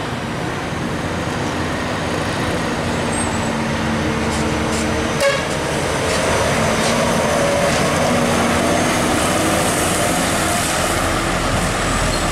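Hino 500 FL tronton truck's diesel engine running as it pulls slowly through a bend, over steady road-traffic noise. A short horn toot about five seconds in.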